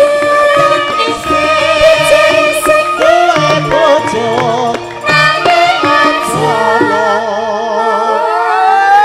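Javanese gamelan music: a female sinden singing a wavering line with vibrato over the ensemble's steady metallophone tones and low drum strokes.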